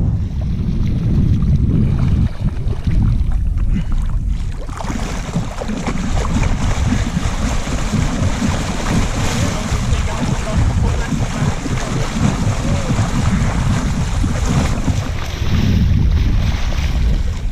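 Wind buffeting the microphone with a steady low rumble, joined from about five seconds in by a dense rushing splash of water.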